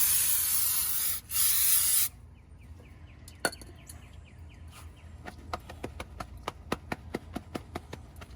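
Aerosol brake cleaner sprayed onto spilled oil in two loud hissing bursts over the first two seconds, then a run of faint ticks, about three a second.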